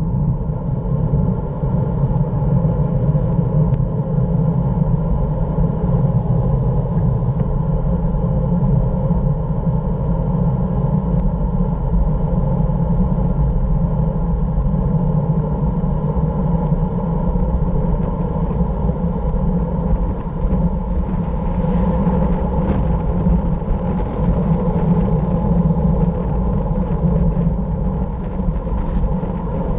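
Steady wind roar and tyre rumble from a fast downhill ride on asphalt, buffeting the action camera's microphone without letup.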